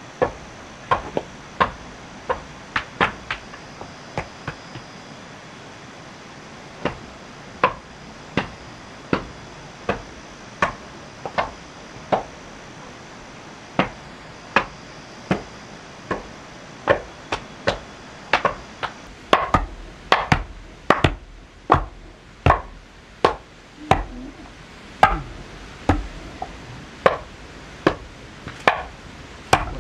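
Repeated sharp blows of a hand tool striking wood. They come irregularly at first, then fall into a steady rhythm of roughly one to two blows a second, louder and heavier about two-thirds of the way in.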